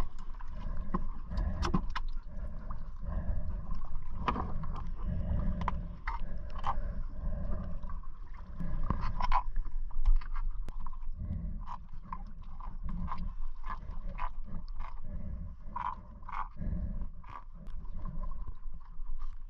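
Scattered clicks, knocks and scrapes of gloved hands and a tool handling a speared fish on a boat's fiberglass deck, over a steady low rumble.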